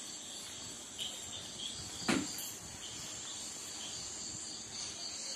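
Steady high-pitched chirring of insects, with a single sharp knock about two seconds in.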